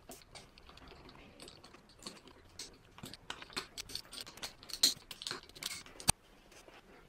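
Irregular small metallic clicks and clatters of a Toyota 4A-GE throttle body being handled and turned over during reassembly. They grow busier after about three seconds, with a single sharp click about six seconds in.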